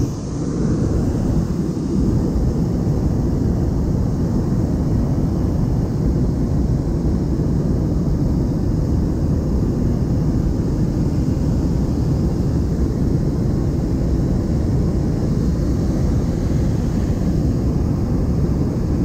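Hot air balloon's propane burner firing in one long continuous burn: a loud, steady rushing noise that cuts off suddenly near the end.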